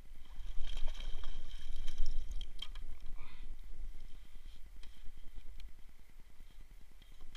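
Landing net with a pike in it lifted out of the water into an inflatable boat: water splashing and dripping off the mesh, loudest in the first two seconds, then fainter knocks and rustling as the fish is handled in the net. A low rumble sits underneath.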